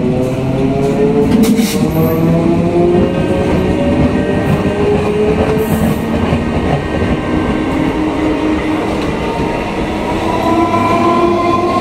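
Conventional EMU local train pulling away and picking up speed, its traction motors whining in several tones that rise steadily, over the rumble and clatter of the wheels on the track.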